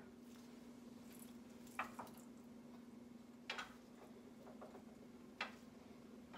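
Faint clicks and taps, four in all and spread out, as small decorations are handled and set down on a china hutch's shelves, over a steady low room hum.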